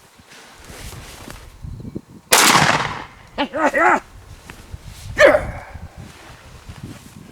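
A single shotgun shot about two seconds in, with a short echoing tail. A few short pitched cries follow, then another sharp sound with a falling pitch.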